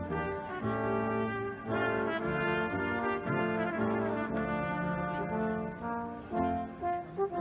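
Brass ensemble with tuba playing music in held chords, the notes changing every half second to a second.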